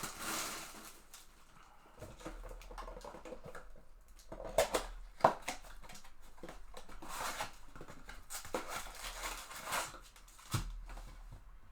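Trading card boxes and packs being handled and opened: scattered rustling and crinkling of packaging with sharp clicks, and two louder snaps about four and a half and five seconds in.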